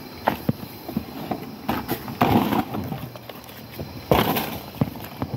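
Rustling and crackling of leaves and forest undergrowth, with two longer brushing sounds about two and four seconds in, amid irregular small crackles and snaps.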